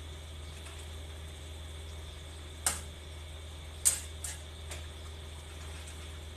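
A metal spatula clinking against the rim of a wok of simmering soup while stirring: four sharp clinks in the second half, the loudest about four seconds in, over a steady low hum.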